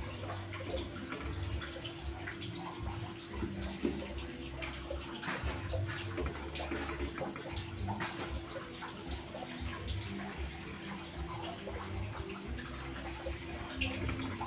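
Chicken simmering and bubbling in a pot of reduced yellow spiced coconut liquid, with occasional sharp clinks of metal tongs against the pot. A steady hum runs underneath.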